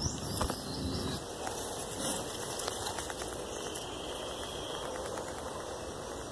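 Handling noise from a scoped air rifle being swung and aimed: a few faint knocks and clicks near the start and again about two seconds in, over a steady low hiss of background noise.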